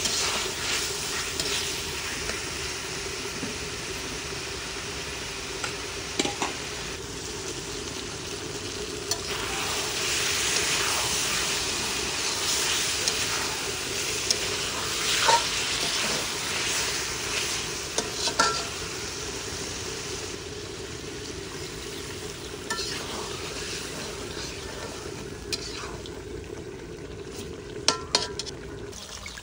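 Fish pieces sizzling as they fry in a large wok, stirred with a metal spatula that scrapes and clinks against the pan a few times. A steady low hum runs underneath and stops near the end.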